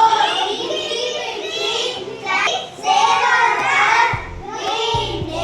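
Children's voices singing together over background music, with a low beat coming in about four seconds in.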